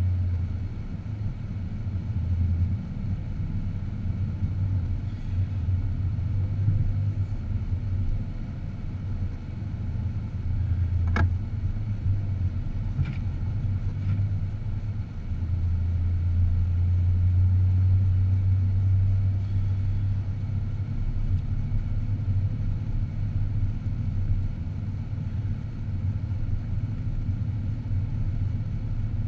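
Car driving: a steady low rumble of engine and road noise. A sharp click comes about eleven seconds in, and a fainter one two seconds later.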